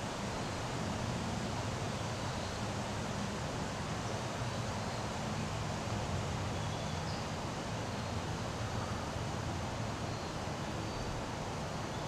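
Steady outdoor background noise: an even hiss with a low hum underneath and no distinct event.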